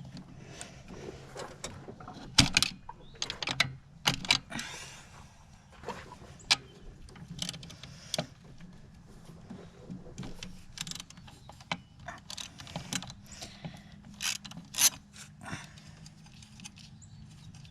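Socket-wrench ratchet clicking in short, irregular runs, with sharp metallic clinks and knocks of tools, as a 10 mm nut is worked loose on the engine.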